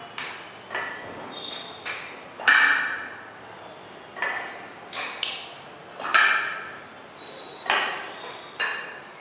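Spiked shoes stepping on a wet metallic epoxy floor coating: a string of sharp clicks, each with a short ringing tail, at irregular gaps of about half a second to a second.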